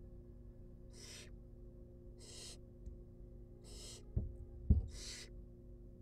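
Barn owl nestling hissing its begging call, short rasping hisses about every second and a half, four of them. Two sharp low thumps just past the middle are the loudest sounds.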